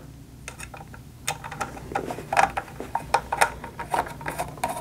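Small screwdriver turning out the screw of a Grundfos Alpha2 pump's terminal box cover: light, irregular clicks and ticks of metal on metal and plastic, coming more often after about a second.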